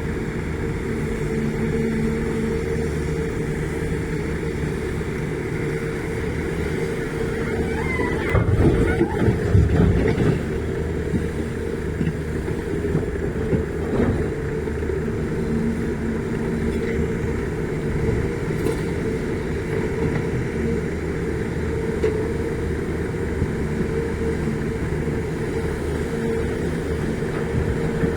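Volvo EC480DL excavator's diesel engine running steadily, with a louder, rougher stretch about eight to ten seconds in.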